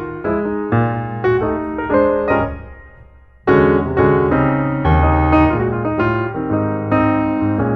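Background piano music: struck chords that ring and fade, dying away about three seconds in before a fuller chord comes back in.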